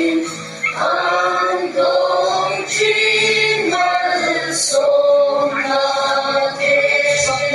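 A mixed group of men and women singing together, holding long notes one after another, with an acoustic guitar accompanying them.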